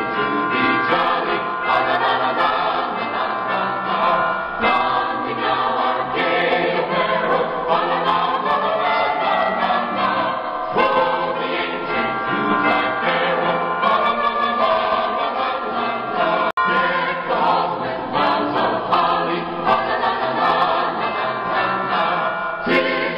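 Choir singing, music laid over the pictures; the sound drops out for an instant about two-thirds of the way through.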